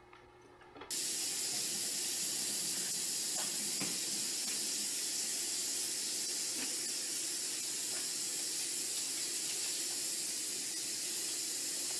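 Kitchen faucet running steadily, its stream splashing over a cat being washed in the sink; the water sound starts abruptly about a second in.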